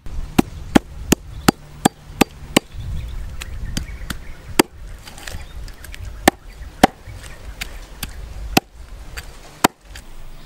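A large knife chopping a snake into pieces on a round wooden chopping block: a run of seven quick chops, about three a second, then slower single chops a second or more apart.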